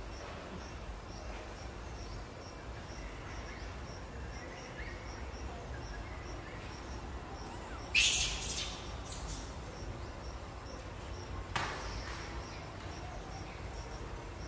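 Outdoor background with a faint, high insect chirp repeating evenly about twice a second. A short, sharp, high-pitched sound stands out about eight seconds in, and a weaker one comes a few seconds later.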